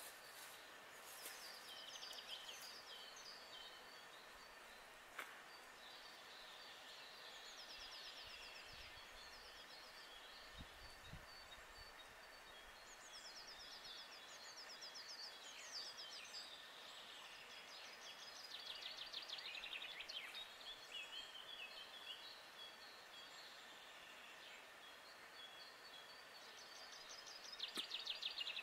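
Several songbirds singing at once, faint: overlapping trills and rapidly repeated high notes, with the loudest trill near the end.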